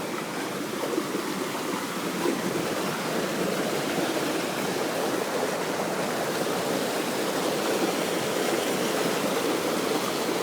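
Rushing water of a waterfall stream: a steady, even rush that grows gradually louder.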